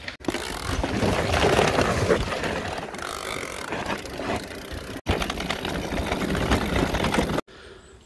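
Mountain bike rolling fast down a dirt trail: tyres crunching over leaves, soil and stones, with the bike rattling and jolting over the bumps. It breaks off twice for an instant, and near the end drops sharply to a much quieter, distant scene.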